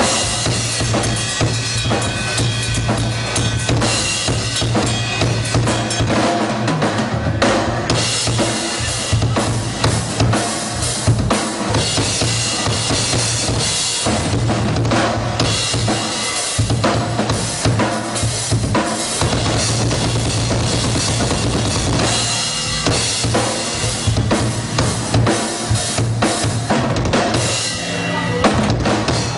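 Live rock drum solo on a full drum kit: fast, unbroken strokes on snare, toms and bass drum under ringing cymbals.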